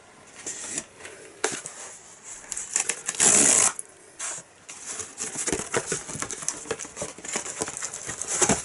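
Handling noises of cardboard packaging and plastic DVD cases: scattered clicks and rustles, with one loud rip lasting about half a second a little after three seconds in as a tear strip is pulled off the cardboard delivery box.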